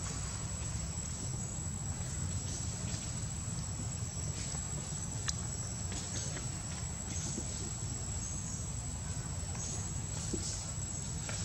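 Steady high-pitched drone of insects, over a constant low rumble of wind on the microphone, with a few faint light clicks.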